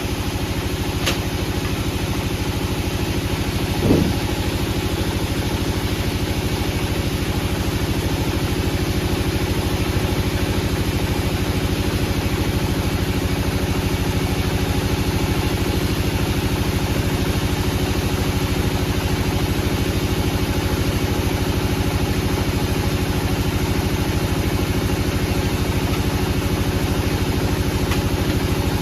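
Wood-processing machinery's engine running at a steady speed, with one brief squeak about four seconds in.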